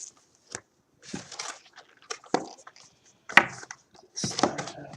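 A cardboard trading-card hobby box being opened and handled: a series of short rustling and scraping sounds with a sharp click a little over three seconds in.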